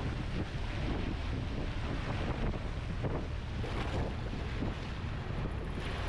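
Strong wind buffeting the microphone over the steady rush of choppy sea and boat wake.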